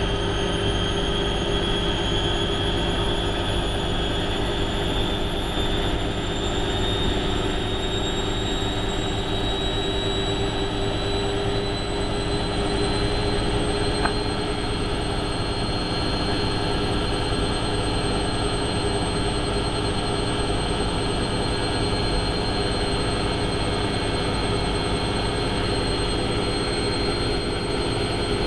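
Hotpoint Aquarius WMF70P 7 kg washing machine spinning at speed: a steady loud drum and motor drone. A high motor whine rises in pitch over roughly the first fifteen seconds, then holds steady as the spin reaches speed.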